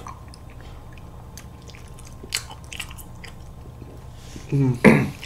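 Close-miked mouth sounds of eating soft vanilla ice cream off metal spoons: quiet smacking and small clicks. A short, loud vocal sound comes near the end.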